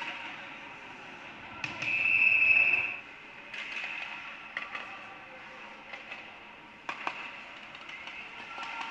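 Ice hockey referee's whistle blown once, a single high blast of about a second, with a few sharp clacks of sticks and puck on the ice over the rink's background noise.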